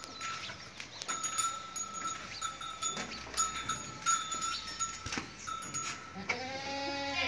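Goats, with a steady high ringing tone that runs on with short breaks and a few knocks, then one long goat bleat starting near the end.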